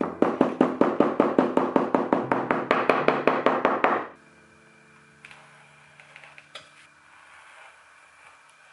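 Brass-headed hammer rapidly tapping a metal rivet through layers of leather on a hardwood block, about six quick strikes a second, stopping about four seconds in. A few faint light clicks follow.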